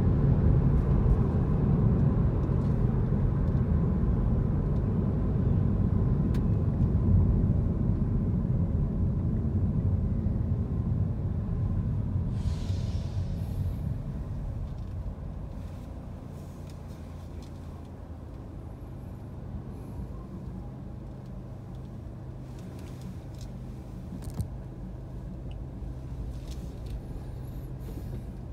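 Road and engine rumble heard from inside a car, loud and steady for the first dozen seconds, then dying away as the car slows to a stop in traffic, leaving a quieter steady engine hum. A short hiss about 12 seconds in.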